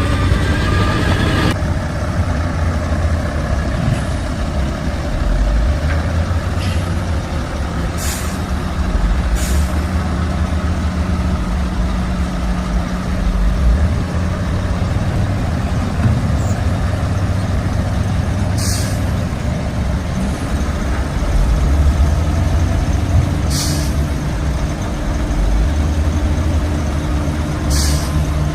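Shantui bulldozer's diesel engine running heavily under load, its pitch and level rising and falling as it works. Short sharp hisses break in about every few seconds, six times in all.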